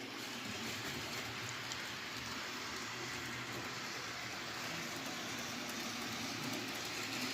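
HO-scale model train running on the layout's track: a steady whir of the locomotive's motor and wheels rolling on the rails, unchanging throughout.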